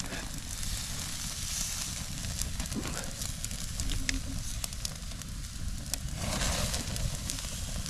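Cooking fire crackling, with scattered sharp pops over a steady hiss; the hiss swells louder about six seconds in.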